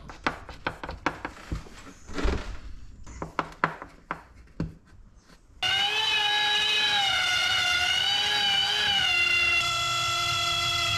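Scratchy clicks and scrapes of a pointed hand tool picking at a rotten wooden seam. About five and a half seconds in, a small corded power tool starts against the seam with a high whine that wavers as it cuts, then steadies at a slightly lower pitch near the end, clearing out rotten wood.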